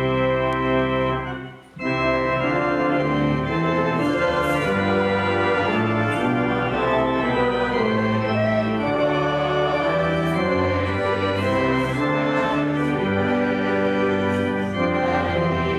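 Church organ, newly rebuilt, playing: a held chord ends about a second and a half in, then after a brief pause a melody moves over sustained chords.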